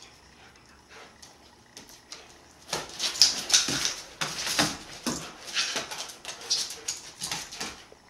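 Siberian husky's claws clicking and scrabbling on a hardwood floor as it pounces and paws, an irregular run of quick clicks and scuffs starting about three seconds in.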